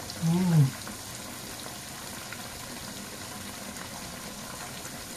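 A man's short 'mmm' of enjoyment, rising then falling in pitch, as he bites into a deep-fried chicken drumstick, over a steady low hiss that runs on after it.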